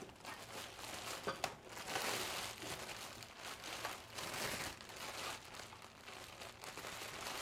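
Clear plastic packaging bags crinkling and rustling as they are pulled off by hand, in irregular handfuls of crackles.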